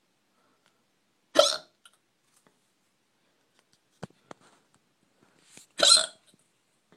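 A person hiccuping twice, about four and a half seconds apart, with a few faint clicks in between.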